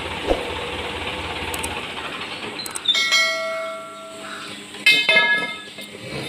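Two bell-like chimes about two seconds apart, each starting with a sharp click and ringing for about a second: the notification sound effect of a YouTube subscribe-button overlay. Before them, a low idling engine hum stops about two seconds in.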